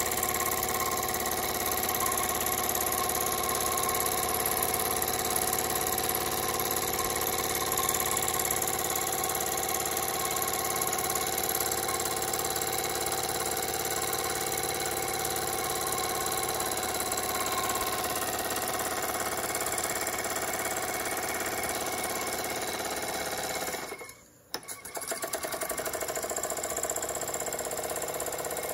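Jensen 25GR toy steam engine running steadily under steam, its flywheel turning a small belt-driven generator. The sound cuts out for a moment near the end, then carries on.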